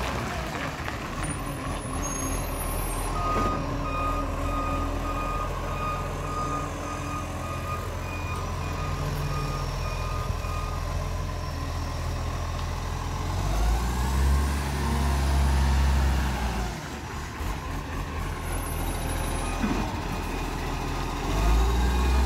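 Iveco side-loader garbage truck's diesel engine running as the truck manoeuvres, with a reversing alarm beeping steadily for about eight seconds from a few seconds in. The engine revs up twice, once around the middle and again near the end as the truck pulls forward.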